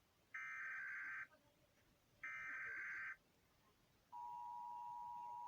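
Emergency Alert System alarm: two harsh, buzzing SAME data-header bursts about a second long, a second apart, then about four seconds in the steady two-tone EAS attention signal begins.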